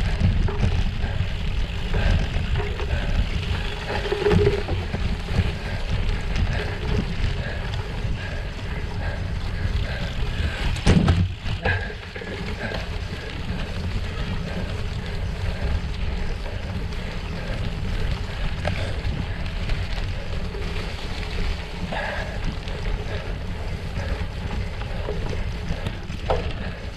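Bicycle ridden over a rough snowmobile trail: a steady rumble of tyres and rattling frame, with wind buffeting the microphone. A sharp knock comes about eleven seconds in.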